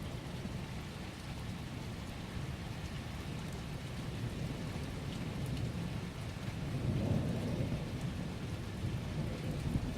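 Thunderstorm: steady rain with low rolling thunder, the rumble swelling about seven seconds in.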